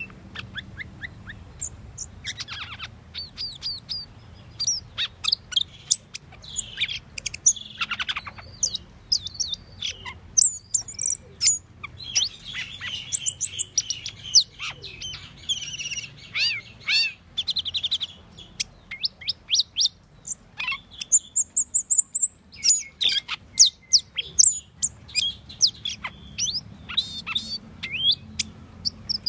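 Asian glossy starling (Aplonis panayensis) singing a varied, rambling song of sharp chirps, clicks and whistles. A fast run of rapid repeated notes comes around the middle, and a high, clear whistle follows a little later.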